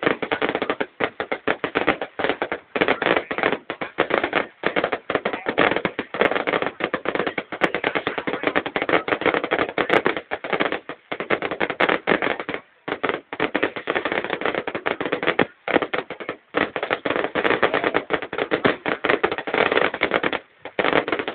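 Fireworks crackling and popping in a dense, almost continuous barrage, with a few short breaks.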